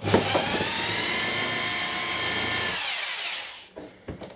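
Power drill running steadily at high speed for about three seconds, then winding down in pitch as it is let off. A couple of light knocks follow.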